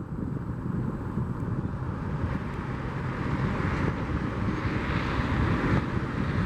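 Jet aircraft engines rumbling, with a rushing hiss that swells in the middle, mixed with wind buffeting the microphone.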